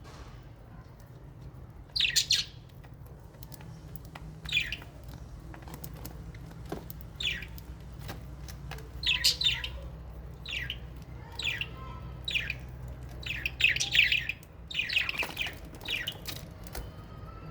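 Small aviary parrots, lovebirds and budgerigars, giving short high chirps every second or so, loudest about two seconds in and again near fourteen seconds, over a faint steady low hum.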